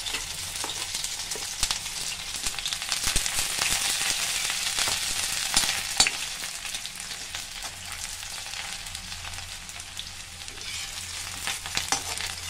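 Freshly added chopped onion frying in hot oil in a metal kadhai, sizzling steadily, with clicks and scrapes of a perforated metal spoon stirring it against the pan. The sizzle eases off after about six seconds, and a sharp click of the spoon on the pan comes at that point.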